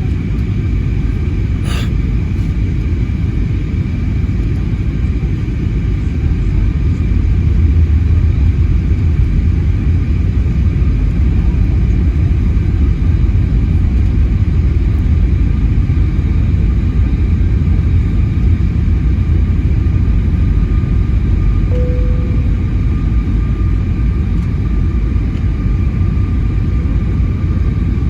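Airbus A320neo cabin noise from a seat behind the wing: a steady, deep rumble of the jet engines and airflow, with a faint steady whine over it. It grows slightly louder about seven seconds in, and a single click is heard about two seconds in.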